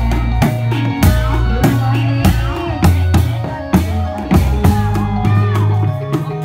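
Live Reog Indramayu music accompanying the dance: drums keep a steady, driving beat under held bass notes and a wavering melody line that slides up and down.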